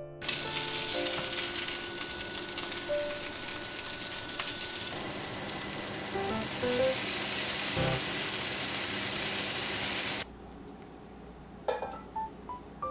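Pork burger patties sizzling as they fry in oil in a pan: a steady, hissing sizzle that cuts off suddenly about ten seconds in.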